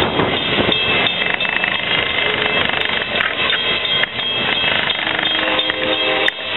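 Amtrak Northeast Regional train's coaches rolling past on the rails: a steady rush of wheel and rail noise.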